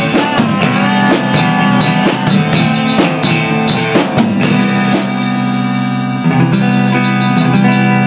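Live band jamming: a drum kit played with guitar. The drum hits drop out for about a second around five seconds in while the sustained notes ring on, then the drums come back in.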